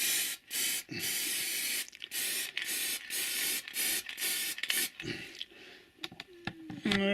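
Aerosol can of Railmatch sleeper grime paint spraying onto model railway track in a run of hissing bursts, a few short and then a longer pass, stopping about five seconds in.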